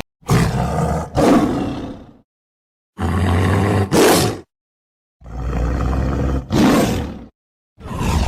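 Tiger roaring, a series of deep roars about one to two seconds long, some following straight on from one another, broken up by short completely silent gaps.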